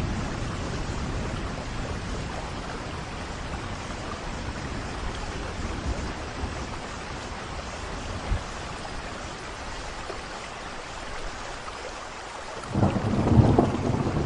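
Steady rain hissing, with a low thunder rumble fading at the start and another building loudly near the end.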